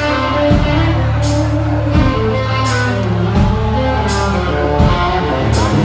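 Rock band playing live, an instrumental stretch with guitar over a steady low beat and a bright hit about every second and a half.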